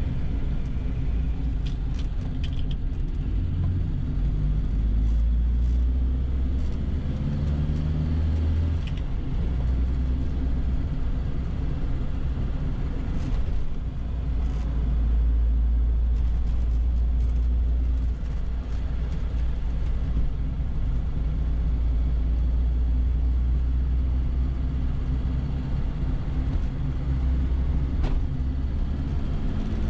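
1969 Reliant Regal three-wheeler running on the road, heard from inside the car: a steady low engine drone with road rumble that swells a couple of times.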